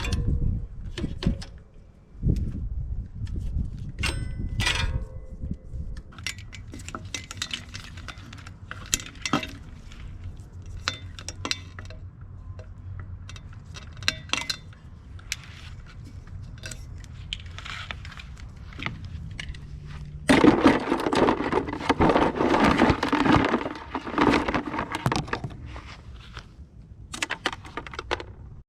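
Irregular metallic clinks and knocks of tools and bicycle parts being handled while a mountain bike is taken apart, with a few seconds of louder rough noise about two-thirds of the way through.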